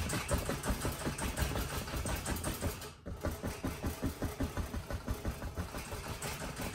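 A dry paintbrush tapping rapidly against a stretched canvas on an easel, about five or six taps a second, with a brief pause about three seconds in. It is stippling in mist at the base of painted mountains.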